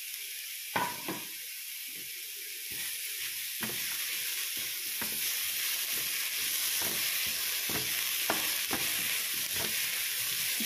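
Onion, coconut, herbs and tomato sizzling as they roast in a frying pan, stirred and scraped with a wooden spatula that knocks against the pan at irregular intervals. The stirring gets busier about three seconds in.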